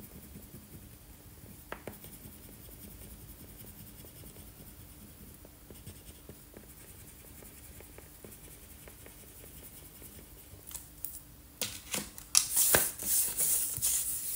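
A crayon scratches faintly as it colours on paper. About three-quarters of the way through, the loose paper sheet is picked up and handled, rustling loudly several times.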